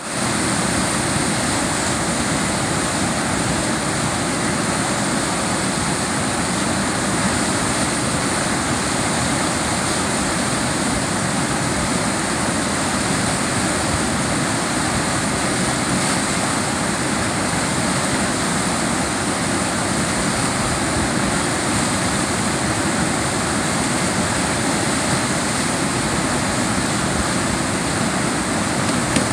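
Steady rush of whitewater from a river standing wave, loud and unbroken.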